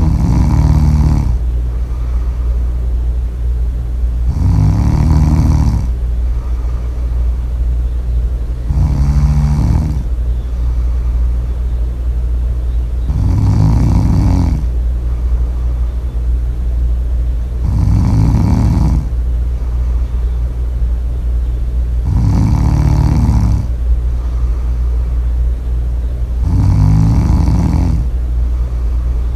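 Loud snoring: seven snores about four and a half seconds apart, each lasting about a second and a half, over a steady low hum.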